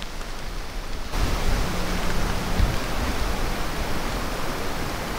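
Steady rushing noise with occasional low rumbles, stepping up abruptly louder about a second in.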